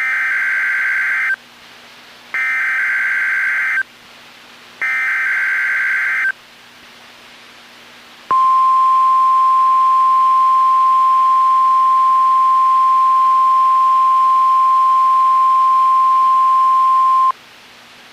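NOAA Weather Radio Specific Area Message Encoding (SAME) header: three bursts of warbling digital data tones, each about a second and a half long with about a second between them. After a pause comes the steady 1050 Hz warning alarm tone, held for about nine seconds, the tone that sets off weather alert receivers, sent here as the weekly test.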